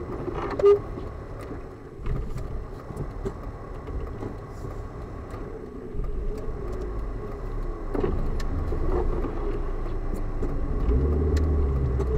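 Car engine and tyre rumble heard from inside the cabin on a snowy road, growing louder near the end. A short, loud beep comes about a second in.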